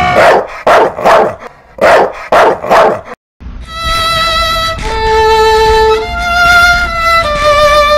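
About six short, sharp yelping cries roughly half a second apart. After a moment's dropout, a slow, mournful violin melody of long held notes with vibrato follows.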